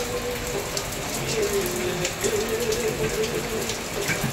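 Heavy rain falling and running off the edge of a corrugated roof sheet, splashing below with a steady hiss and many small drip taps.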